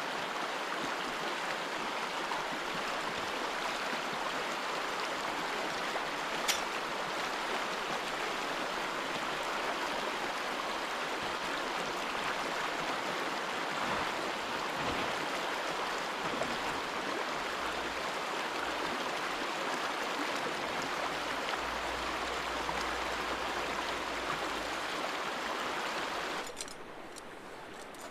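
Stream water rushing steadily, with one sharp tick about six seconds in; the rush drops suddenly to a quieter hush near the end.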